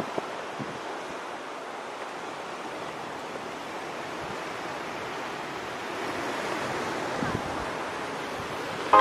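Steady rushing wind noise on the microphone, growing a little louder over the last few seconds.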